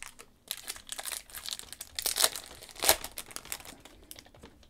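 Merlin Chrome trading-card packs being opened and handled: foil wrappers crinkling and tearing and cards rustling in an irregular crackle, with a couple of louder crackles about two and three seconds in.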